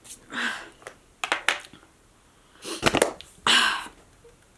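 Handling noise from makeup items being picked up and set down: a few sharp clicks, a thump about three seconds in, and a couple of short rustles.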